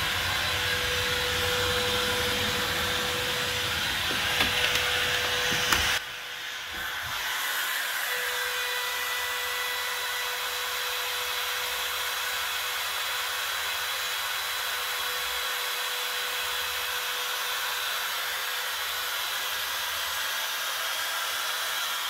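Makita trim router on an MPCNC running steadily as its bit carves a pine board: an even motor whine with a cutting hiss. For the first few seconds there is a low rumble, with a few sharp knocks about five seconds in; after that the router runs on alone.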